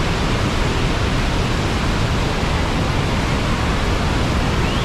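Steady, loud roar of a large waterfall's falling water, a constant wash of noise with a heavy low rumble.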